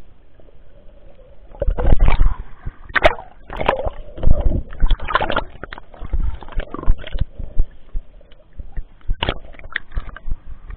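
Water splashing and sloshing close to the microphone of a waterproof action camera as it moves between underwater and the surface beside a swimming dog, with irregular knocks and bumps as the camera is jostled.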